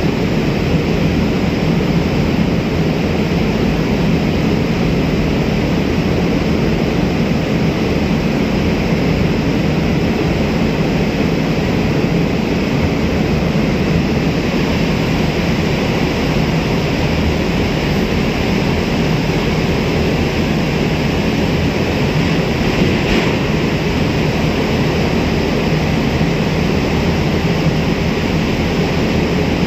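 Steady, loud drone of a boat under way: engine noise mixed with a broad rush of wind and water, unchanging throughout.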